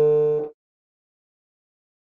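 A steady, buzzy tone rich in overtones from the Kundt's tube loudspeaker, driven by the signal generator, fades out about half a second in, then silence.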